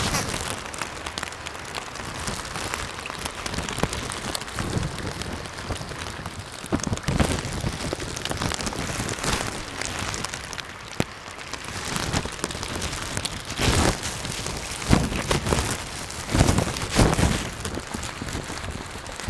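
Steady rain falling, with many sharp ticks of single drops and a few louder knocks in the second half.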